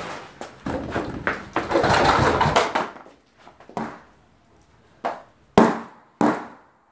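Firework mortars burning in a fire pit: a few seconds of hissing, crackling spray of sparks, then three sharp bangs about half a second apart near the end, the middle one the loudest.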